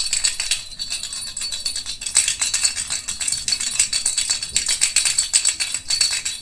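Baby rattle being shaken continuously, a dense run of small clicks from the beads inside, easing briefly about a second in.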